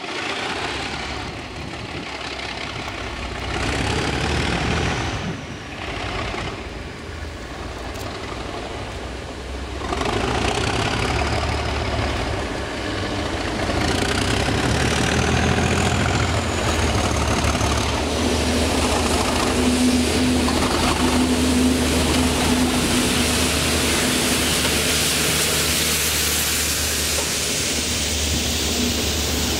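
Class 37 diesel locomotives, their English Electric V12 engines working, hauling a train of tank wagons past at close range. The engine noise grows louder about ten seconds in as the train comes near and stays loud as it passes, with a high whistle that rises and falls and a steady low hum.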